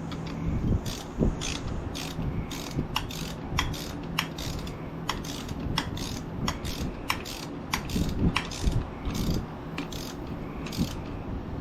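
Socket ratchet clicking in short, irregular runs, about two clicks a second, as a bolt is turned.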